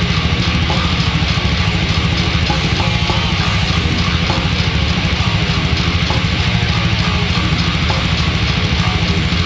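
Death metal recording: distorted electric guitars over very rapid, driving drumming, loud and unbroken.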